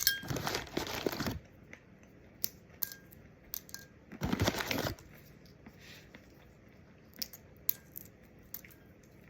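Pistachio shells being cracked open by hand: scattered sharp clicks and ticks of shell, with a short burst of crunching and rustling at the start and another about four seconds in.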